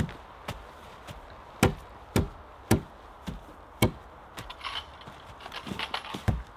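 A charred wooden pole rammed repeatedly into the ground, tamping earth at the base of a log frame leg: a run of dull thuds about two a second, followed by lighter, scattered knocks and rustling in the leaf litter.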